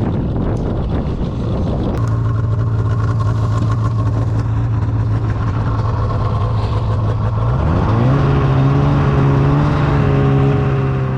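A vehicle engine running at a steady pitch, then revving up about seven and a half seconds in and holding at the higher speed. Wind noise comes before the engine note is clear.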